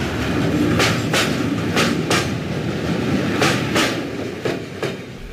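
Railway wagons rolling over rail joints: pairs of sharp clicks from the wheels, four pairs in all, over a steady low rumble.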